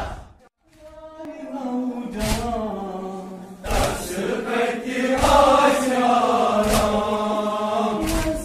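The sound dies away just after the start, then about a second in male voices begin chanting a mourning lament (noha), pitched and drawn out. A sharp beat falls about every second and a half under the chant.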